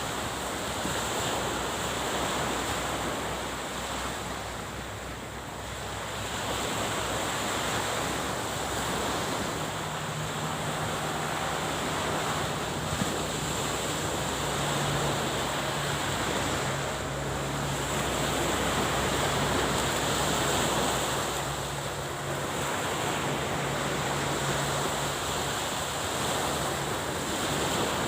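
Sea waves washing on the shore, with wind buffeting the microphone. A low steady hum comes in about a third of the way through and fades out near the end.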